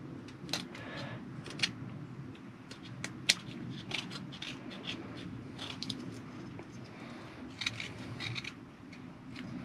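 Small knife whittling a wooden toggle: a run of short, irregular scraping cuts as the blade shaves the wood flat, over a faint low rumble.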